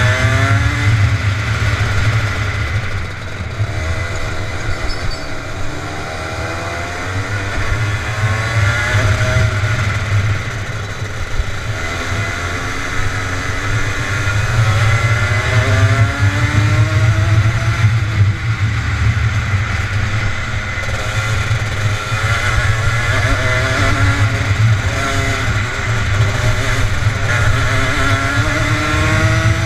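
Rotax Max Junior 125 cc two-stroke kart engine heard from the driver's seat at racing speed, its pitch rising and falling again and again as it accelerates out of corners and backs off into them.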